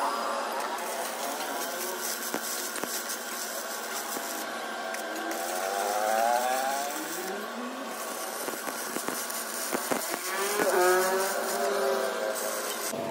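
Stick arc welding on a steel shaft: the electrode crackles and sizzles steadily as a bead is laid around the joint. A second pitched sound slides up and down in pitch about halfway through and again near the end.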